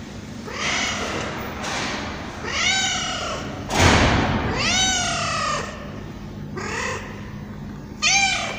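Tabby cat meowing repeatedly: about five separate meows, each rising and falling in pitch, the last one loud and sharp near the end. Just before the fourth second there is a brief loud burst of noise.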